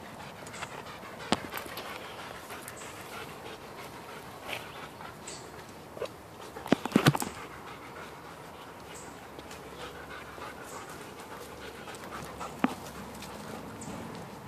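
A shepherd dog panting steadily, with a few sharp knocks that are loudest in a short cluster about seven seconds in.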